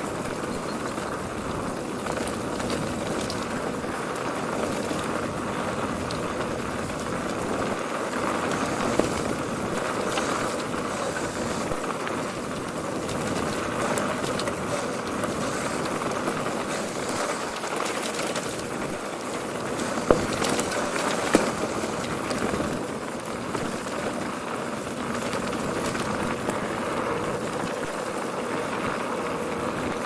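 Mongoose Tyax mountain bike rolling downhill on a dirt track: steady tyre and rattle noise, with a sharp knock about nine seconds in and two more about twenty seconds in.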